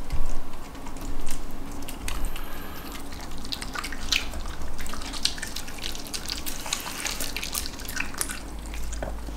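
A dog licking and chewing moist food: a scattered run of short wet smacks and clicks.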